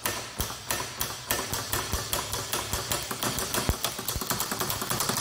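Aircraft magneto's impulse coupling snapping as a cordless drill spins it slowly on a test rig, sharp clicks over the drill's steady hum. The clicks come about three a second at first and speed up toward the end as the magneto gains speed.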